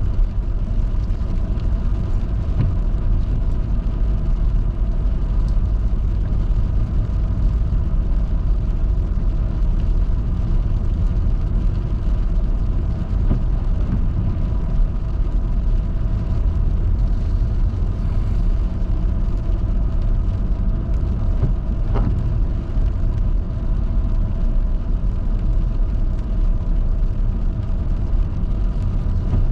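Car driving on a rain-wet highway: a steady low rumble of road and engine noise with a faint steady hum.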